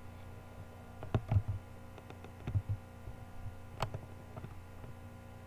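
A handful of short, scattered clicks over a steady low electrical hum, the sharpest click nearly four seconds in.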